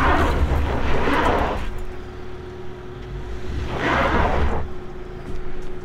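Subaru Outback Wilderness's 2.4-litre turbo engine working under load on a steep loose-dirt climb, with two bursts of tyres spinning and spraying dirt, at the start and again about four seconds in. A steady whine holds from about two seconds in. The wheels are losing traction, which the driver puts down to its open front and rear differentials.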